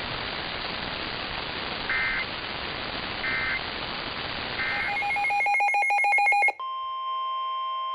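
Emergency Alert System tones over a hissing broadcast channel. Three short two-tone data bursts, about a second and a half apart, are the end-of-message signal closing the AMBER Alert. Then a louder, rapidly pulsing run of data tones and a steady electronic alert tone begin the next alert.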